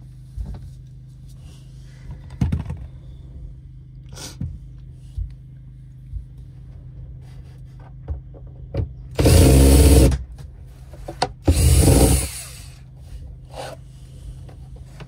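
Work noise from prying loose glued and nailed curtain fittings on an RV wall: small knocks and clicks, then two loud rasping bursts of about a second each, a couple of seconds apart.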